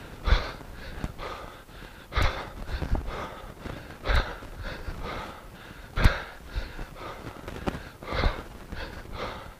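A man breathing hard under the exertion of kettlebell swings and cleans, with a strong exhale about every two seconds and quicker breaths between.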